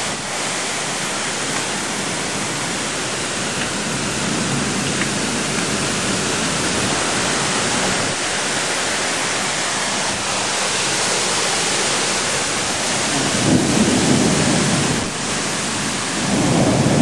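Thunderstorm wind and heavy rain: a steady dense rush of gusting wind through the trees and pouring rain. It swells deeper and louder twice, once about two-thirds of the way in and again near the end.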